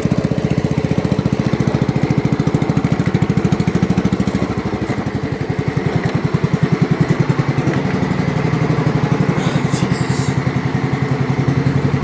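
Small engine of a ride-on machine running at low throttle with a steady pulsing beat, sounding like a motorcycle or tractor. It runs rough: it sounds and runs badly. Its speed sags a little around the middle and picks back up, with a brief scrape near the end.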